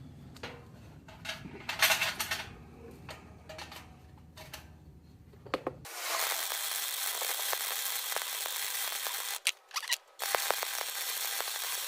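A few light clicks and knocks of handling metal. Then, about six seconds in, an arc welder starts laying a bead: a steady crackling hiss, broken twice briefly near the ten-second mark as the weld restarts.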